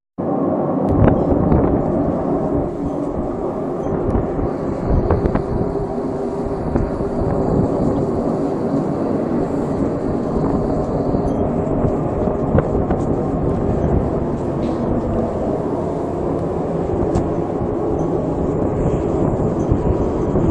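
A loud, steady, low droning rumble from the sky, with a faint thin high whine for several seconds in the middle. It is one of the so-called 'strange sky sounds' whose source is not identified.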